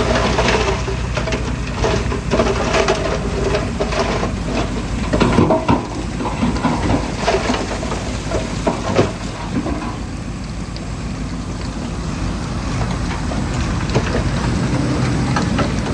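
Diesel engine of heavy earthmoving machinery running, with scattered clanks and rattles. The steady engine drone fades about five seconds in, leaving a rough noisy rumble.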